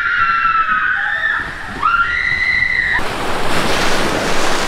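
Two long, high screams from riders in an enclosed tube water slide. About three seconds in they give way to a rush of splashing water as the inner tube shoots out into the open runout.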